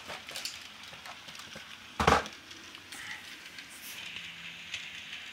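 Handling noise as a cardboard model-train set box is picked up and brought into view, with faint rustling and one sharp thump about two seconds in.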